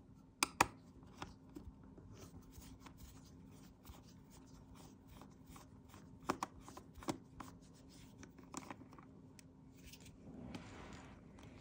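Small metal clicks and ticks of a screwdriver backing a tiny screw out of a laptop battery mount, with a few sharper clicks about half a second in and again around six to seven seconds. A soft rustle of handling comes near the end.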